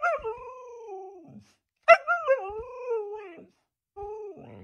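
Husky 'talking': three drawn-out, howl-like vocalizations whose pitch wavers and falls. The first two are long and each starts with a sharp yelp; the last is short, near the end.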